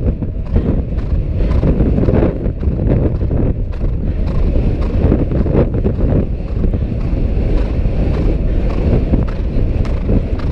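Heavy wind buffeting the microphone while a horse gallops on grass, its hoofbeats thudding in a steady rhythm under the rumble.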